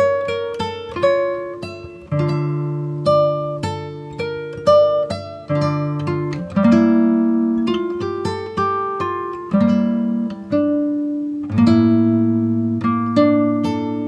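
Background music: guitar plucking a melody over chords, each note struck sharply and fading.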